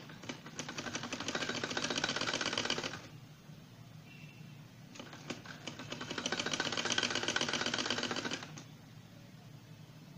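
Domestic sewing machine stitching a seam in two runs of about three seconds each, separated by a pause of about two seconds. Each run picks up speed into a fast, even ticking of the needle.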